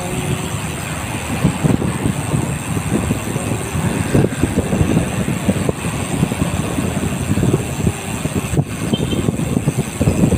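Wind buffeting the microphone of a camera riding on a moving bicycle: an irregular low rumble, with city road traffic around it.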